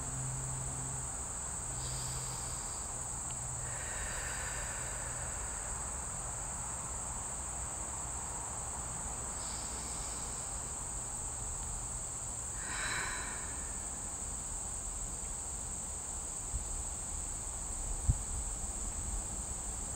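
Insects trilling in a steady, unbroken high-pitched chorus. A few faint short calls come through in the background, and there is one sharp knock near the end.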